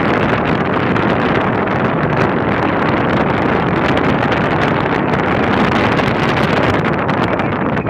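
Wind rushing over the microphone at a moving car's side window, mixed with the car's road and tyre noise, a steady loud rush.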